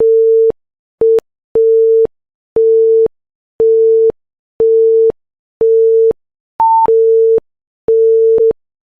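Quiz countdown timer beeping: a steady low electronic beep about half a second long, repeating once a second, with one short higher-pitched beep about two-thirds of the way through.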